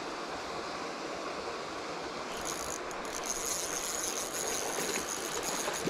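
Spinning fishing reel being cranked: a steady mechanical whir with a high whine that comes in about two seconds in, over a steady background hiss.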